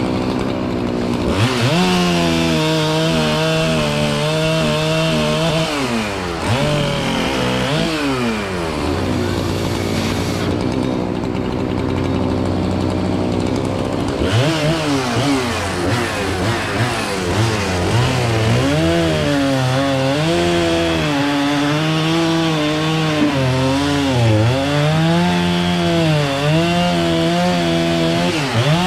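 Chainsaw engine revving up to full throttle and cutting, its pitch dipping and wavering under load. It drops back to a lower idle a few times, longest near the middle.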